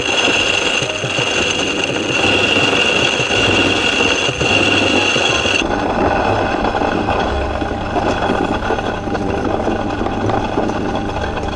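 Electric grain mill with a wooden housing running steadily as it grinds dried tobacco leaves, the motor humming under a dense grinding noise. A high steady whine in the sound drops out suddenly about halfway through.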